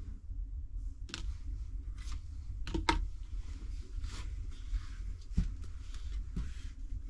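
Irregular crunching and rustling handling sounds, a few sharp crackles among them, over a steady low rumble.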